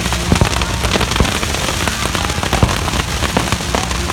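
Fireworks and firecrackers going off in a dense, continuous crackle of many pops a second, with a few louder bangs, over a steady low rumble.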